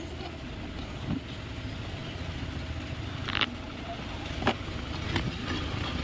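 A few short scrapes and clicks of a thin wire being worked through a locked car's door gap against the door trim and lock, about halfway through and twice more soon after, over a steady low rumble.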